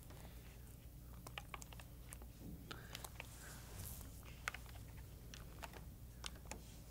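Faint, irregular clicking of small keys being pressed on a handheld Franklin electronic spelling dictionary as a word is typed in, with one sharper click about halfway through.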